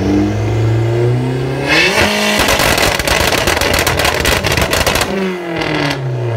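Car engine revved hard through its exhaust: the pitch climbs for about two seconds, holds near the top for about three seconds with a rapid crackle, then falls away, and the next rev begins right at the end.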